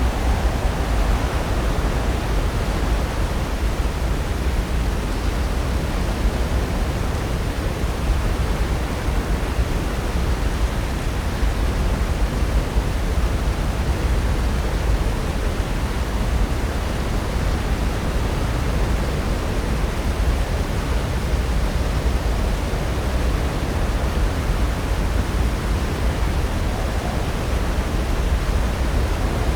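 Pacific Ocean surf breaking, heard as a steady, unbroken wash of noise that is heaviest in the low range.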